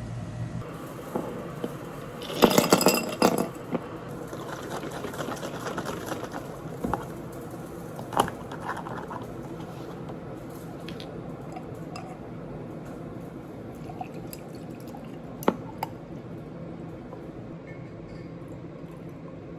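Glass and dishes clinking, with liquid being poured. A short burst of clattering comes about two and a half seconds in, followed by scattered single clinks.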